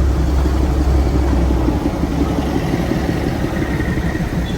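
Darjeeling Himalayan Railway toy train running with a steady rumble; the deepest part of the rumble eases about two seconds in.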